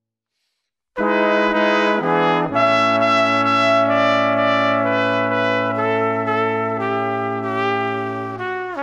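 About a second of silence, then music of brass instruments playing long held chords. The chords change a few times, and the pitch slides down near the end.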